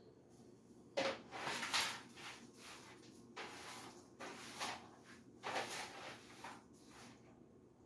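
A series of short knocks and scrapes from household items being handled during kitchen cleaning, starting about a second in and coming about every half second to second.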